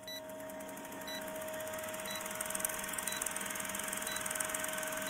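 Old-film countdown-leader sound effect: a film projector's rapid clatter and hiss over a steady hum, with a short high beep once a second.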